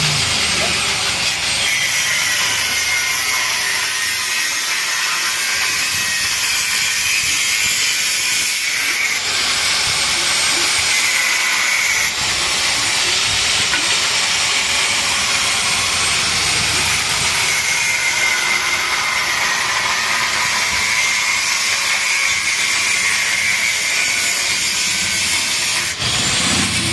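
Power tool cutting into the steel of a motorcycle silencer to get at the baffle inside: a loud, steady high-pitched grinding whose pitch wavers as the load changes.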